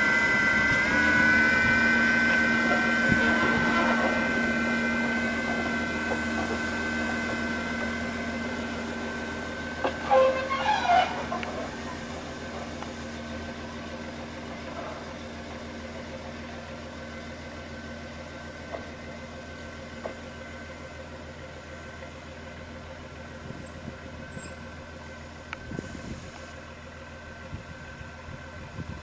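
Diesel engine of a FAUR-built MBxd2 narrow-gauge railcar running as the railcar moves slowly away, its steady drone fading as it recedes. A brief, louder, wavering higher sound comes about ten seconds in.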